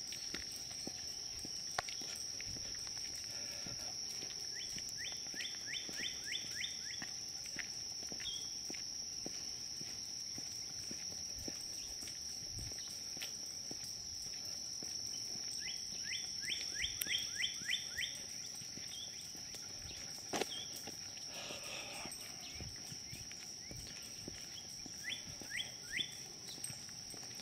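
Woodland ambience: a steady high-pitched insect drone, with a bird singing a quick run of rising chirps three times. Light footsteps on a paved path.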